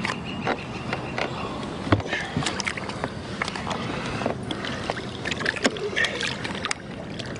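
Water splashing and sloshing against the side of a boat as a large musky is held in the water for release, with irregular sharp splashes and knocks.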